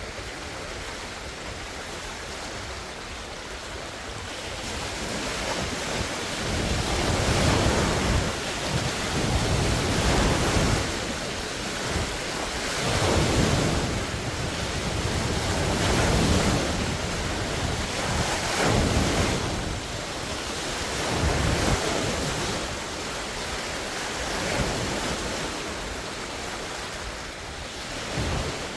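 Large wind-driven lake waves breaking and splashing on the shore. The sound is quieter for the first few seconds, then surges with each wave about every three seconds, under a steady rush of wind on the microphone.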